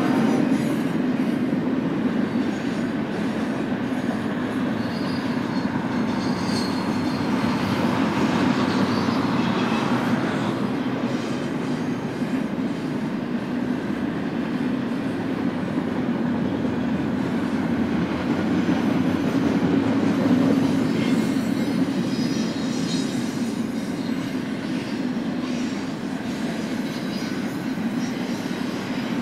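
Double-stack intermodal freight train's well cars rolling steadily past, their wheels rumbling on the rail. Faint high wheel squeals come in about five seconds in and again past twenty seconds.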